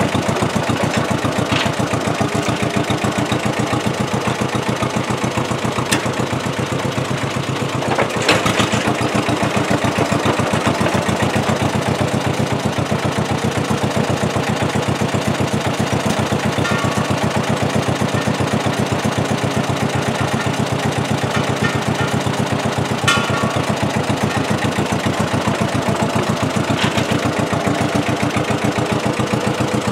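Small crawler bulldozer's engine running steadily with an even, fast pulse, as the dozer pulls back and forth on a chain. A few short sharp clanks stand out over it.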